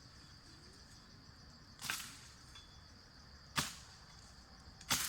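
Three sharp strikes, at about two, three and a half, and five seconds in, over a steady high insect drone.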